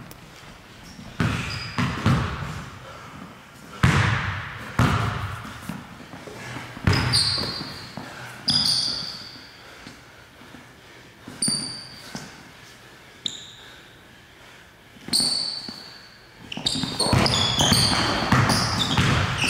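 Basketball being dribbled on a hardwood gym floor: irregular bounces that echo in the large hall. Short high sneaker squeaks come in from about a third of the way in, thickest near the end as the player drives.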